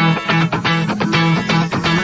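Background music: rhythmic plucked guitar with a steady beat and a bass line.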